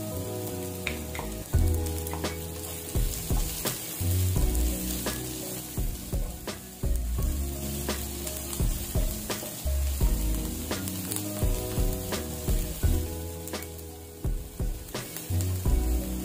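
Chopped onion and garlic sizzling in hot oil in a nonstick pan, with a steady hiss, while a plastic spatula scrapes and taps through them again and again as they are stirred.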